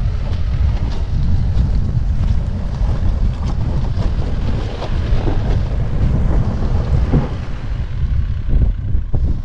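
Heavy wind buffeting the microphone over the low sound of a Force Gurkha diesel 4x4 crawling across loose rock, with faint clicks of stones under the tyres.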